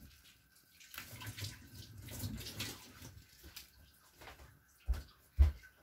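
Crisp green onion stalks rustling and tearing as dry leaves are pulled off by hand, then two dull knocks on a wooden cutting board near the end.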